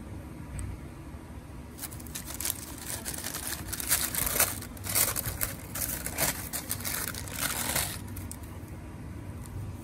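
Thin tissue paper wrapping in a shoebox crinkling and rustling as it is folded back by hand, in quick crackles for about six seconds starting a couple of seconds in, over a low steady hum.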